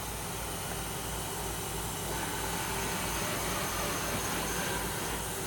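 Steady machinery hum and hiss, with a faint steady tone joining in about two seconds in.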